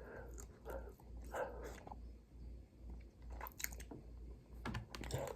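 Close-up chewing of an almond chocolate bar: biting and soft irregular chewing, with a few sharper crunches past the middle.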